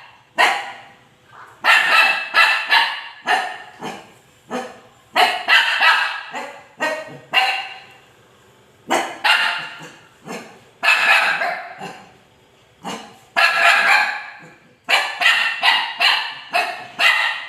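A dog barking at a stranger, in quick runs of two to four barks with short pauses between them.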